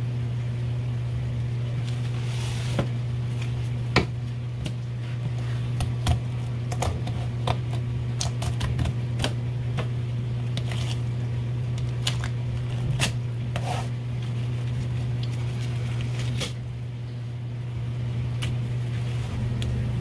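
Light, scattered clicks and taps of a filleting knife and gloved hands working a large flounder fillet on a plastic cutting board, over a steady low machine hum.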